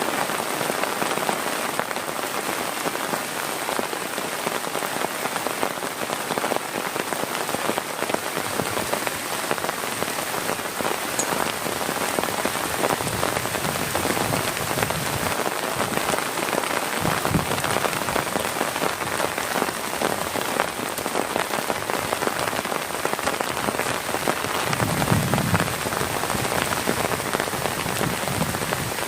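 Heavy rain falling steadily, a dense pattering of drops on surfaces, with a couple of brief low thuds about halfway through and again near the end.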